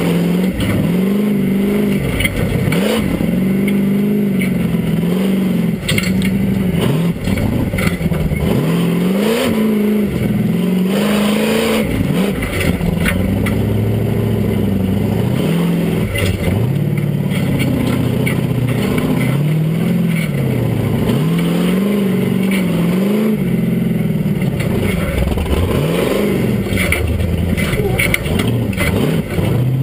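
Chevrolet 572 big-block V8 in an off-road buggy, revved up and back down again and again under load as the buggy crawls over dirt and rocks, with occasional knocks and clatters from the chassis.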